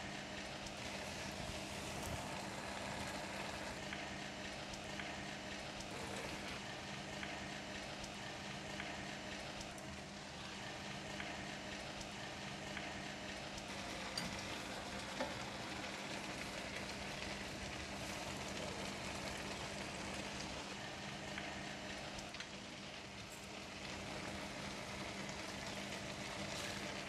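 Stir-fried noodles with prawns and bean sprouts sizzling in a wok as a spatula tosses and mixes them, over a steady low hum. Two light spatula knocks a second apart about halfway through.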